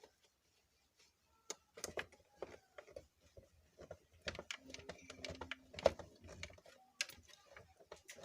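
Irregular clicks and taps of a screwdriver and screws working against the plastic body of a mixer grinder as its four fixing screws are fitted. The taps come thicker from about halfway through, with one sharp knock a little before the end.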